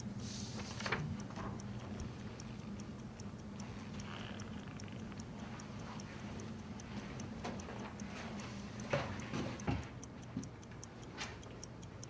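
Fast, steady ticking like a watch or clock, about five ticks a second, over a low hum, with a few soft rustles and knocks from movement.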